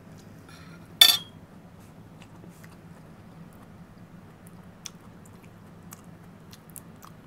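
A metal spoon clinks sharply onto a plate about a second in. Then come faint scattered mouth clicks and smacks of chewing soft boiled pork off the bone, over a low steady hum.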